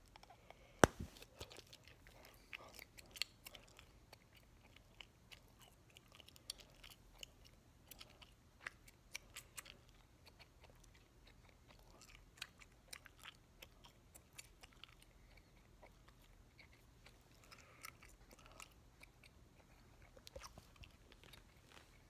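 A large bubblegum bubble pops with a sharp snap about a second in, the loudest sound here; then a mouthful of bubblegum is chewed with irregular clicks and smacks.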